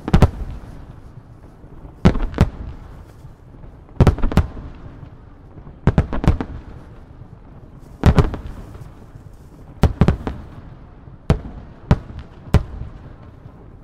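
Aerial firework shells of a starmine bursting in loud booms about every two seconds, often two in quick succession, each trailing off before the next.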